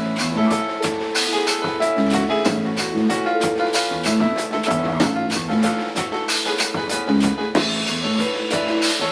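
Instrumental band music: a drum kit keeps a busy steady beat under bass, keyboard and guitar playing sustained melodic notes.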